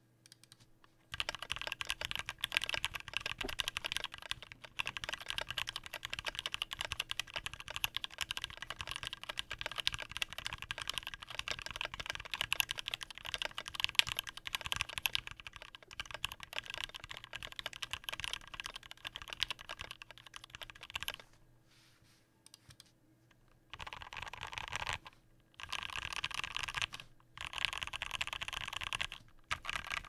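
Typing on a 60% custom mechanical keyboard (KBDFans Tofu case, aluminium plate, lubed and filmed Durock L5 linear switches, thick PBT keycaps): a fast, even stream of keystrokes starting about a second in. It stops for a couple of seconds about two-thirds of the way through, then comes back in three short bursts.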